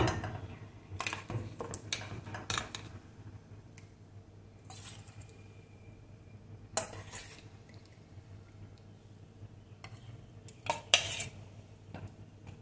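A steel spoon clinking and scraping against steel pots as chicken and gravy are scooped from one pot and laid onto rice in a steel pressure cooker: scattered sharp clinks, the loudest about eleven seconds in, over a low steady hum.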